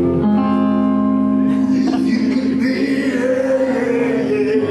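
Live rock band playing loudly: electric guitars ringing on a held chord over bass, with a male voice singing over it from about two seconds in.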